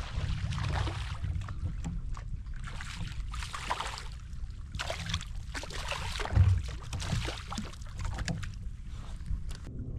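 A hooked fish splashing at the surface right beside a kayak, in several short bursts of splashing as it is fought and brought to the boat.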